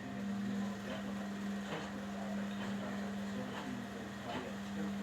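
Indesit IWUB4085 washing machine running: a steady hum at one pitch, with a faint tick about once a second.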